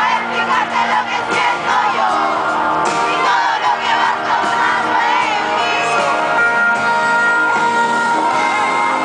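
Live pop band playing loudly, with male lead vocals and a crowd singing and shouting along, recorded from among the audience.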